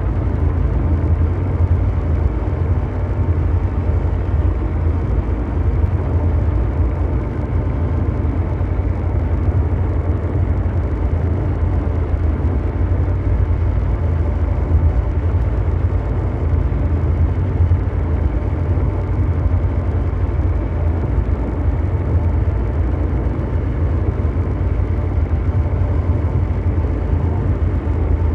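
Continuous ambient mechanical drone: a dense, steady rumbling noise like brown noise, heaviest in the deep bass and unchanging throughout.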